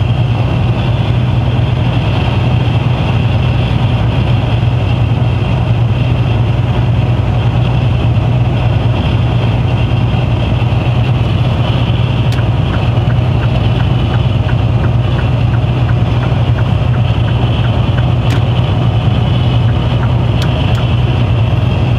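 Mercedes-Benz Actros truck cruising on the motorway, heard from inside the cab: a steady low engine drone with tyre and road noise. A run of faint quick ticks comes about halfway through, and a few sharp clicks near the end.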